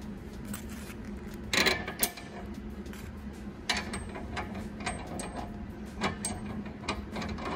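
Light metal clicks and taps of a washer and nut being hand-threaded onto a carriage bolt at a snow plow's blade pivot, with a louder clatter about two seconds in.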